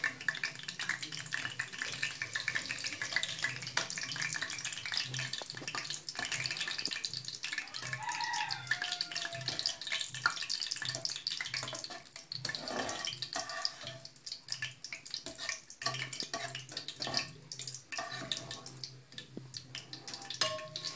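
Gulab jamun sizzling in hot frying oil, a steady fine crackle, with now and then a light scrape or clink of a metal slotted spoon in the pan.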